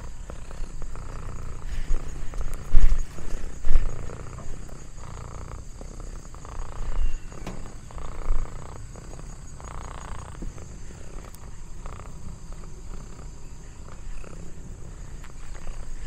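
Orange tabby cat purring: a steady low rumble, broken by a few louder low thumps about three seconds in and again around seven to eight seconds in.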